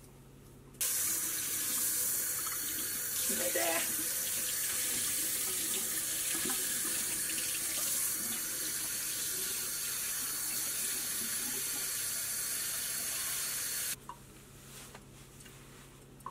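Washbasin tap running steadily, turned on about a second in and shut off abruptly near the end, the water running over a person's hair as it is wetted to flatten bedhead.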